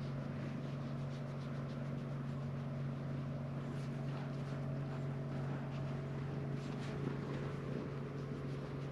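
Calico cat purring steadily close to the microphone while being stroked: a continuous low rumble.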